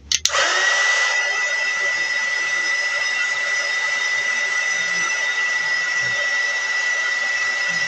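Handheld hot-air blower clicked on at the start, its fan spinning up within a moment to a steady rushing blow with a high steady whine. It is heating the plastic of a model plane to soften it for bending.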